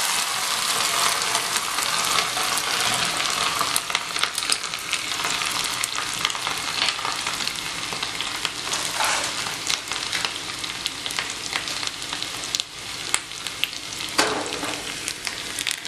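Ginger-garlic paste frying in hot tempering oil (tadka) in a small pan: a steady sizzle full of sharp crackles, a little louder at the start.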